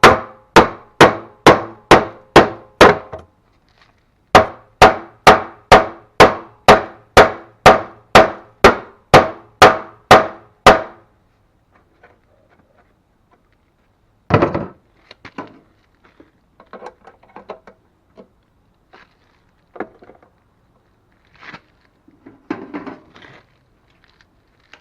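Hammer striking steel on the snowblower's auger, steady blows about two and a half a second in two runs, with a short pause between. After that come a few scattered, quieter metal knocks and clunks of handling.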